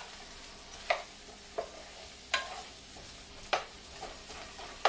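Wooden spoon stirring onions and green peppers sautéing in a nonstick frying pan, knocking and scraping against the pan about once a second over a faint sizzle.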